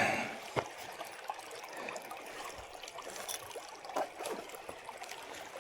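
Shallow creek water trickling and running steadily, with a few faint clicks.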